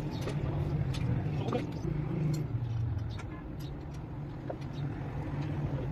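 Massey Ferguson 260 tractor's diesel engine running steadily, with scattered light clicks and rattles.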